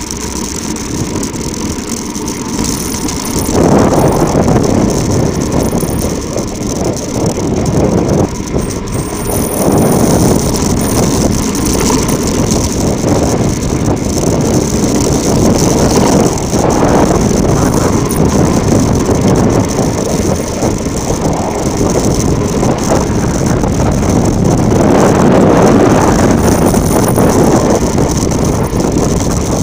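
Mountain bike descending a rough volcanic track: tyres crunching and rattling over loose gravel, with rushing wind on the microphone. It gets louder about three and a half seconds in as speed picks up.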